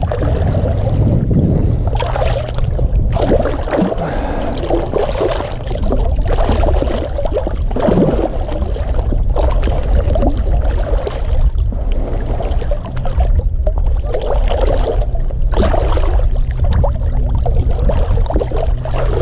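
Water splashing and sloshing beside a kayak in irregular surges, from a big hooked catfish being fought up to the boat. A steady low wind rumble on the microphone runs underneath.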